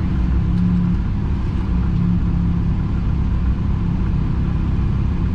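Rally car's engine running steadily, heard from inside the cabin as a low, even rumble. The engine has a bad misfire and is down on power.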